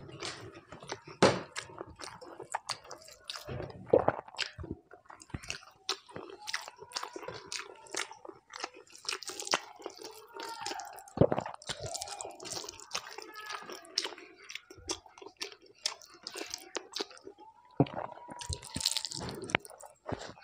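Close-miked wet chewing and lip-smacking of a person eating a mouthful of rice mixed with urad (biulir) dal, with many short clicks and smacks.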